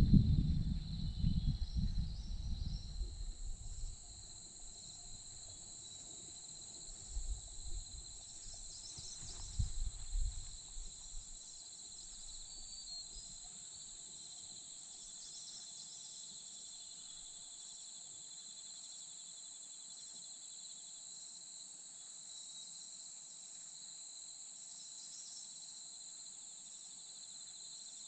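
Low rustling and bumps of a thrush shifting on its twig nest as it turns its eggs and settles down to brood, loudest in the first few seconds and again around eight to eleven seconds in. Behind it, insects chirr steadily in an unbroken high-pitched chorus.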